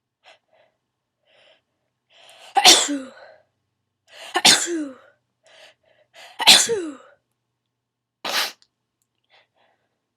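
A person sneezing three times in a sneezing fit, about two seconds apart, each sneeze ending in a falling voiced tail, with quick breaths in between. A shorter breathy burst follows near the end.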